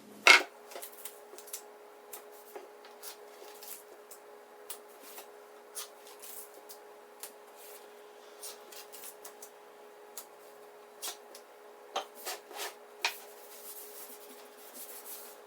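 Light handling in the shop: scattered clicks, taps and rubbing as parts are set up by hand, with a sharp knock just after the start and a few louder clicks near the end. A faint steady hum runs underneath.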